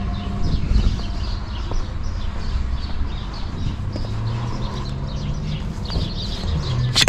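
Birds chirping over a low steady hum, with one sharp click just before the end.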